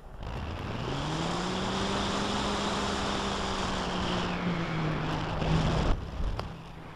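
Electric motor and propeller of a ParkZone T-28 RC plane, heard from a camera on its wing, droning with wind rushing over the microphone. The drone climbs in pitch over the first second or so, holds steady, and then drops off sharply at about six seconds.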